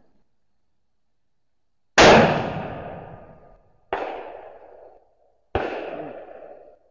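A 6.5 Creedmoor precision rifle fires a single shot about two seconds in, a sharp loud report that rings out over the range for more than a second. Two quieter sharp reports follow about two and three and a half seconds later, each also fading away.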